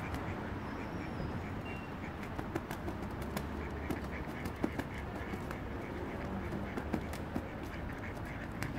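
Mallard ducks quacking while two drakes fight, over a steady low rumble. Short sharp clicks come throughout the second half.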